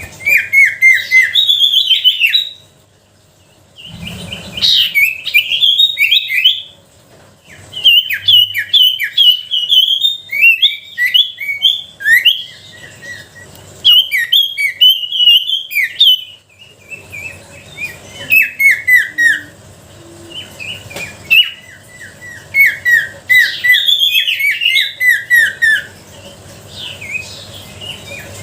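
Sirtu (common iora) singing: loud phrases of rapid, falling, chirping notes, each burst a second or two long and separated by short pauses.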